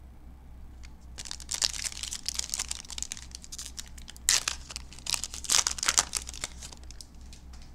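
Foil wrapper of a Panini Prizm football card pack crinkling and tearing as it is ripped open by hand and the cards are pulled out. It starts about a second in and goes on in a dense run of crackles.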